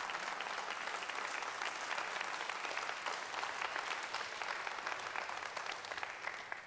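Audience applauding, a steady patter of many hands clapping that fades out near the end.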